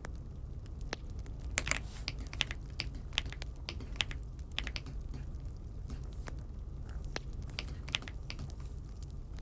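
Keystrokes on an Aula F75 mechanical keyboard: irregular clacks coming in uneven runs, thickest about two seconds in, over a steady low hum.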